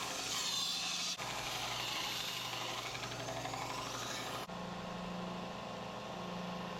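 Belt sander running, with the steel blade held against the abrasive belt giving a loud, hissing grind over the motor's steady hum. About four and a half seconds in the grinding stops and only the motor's hum goes on.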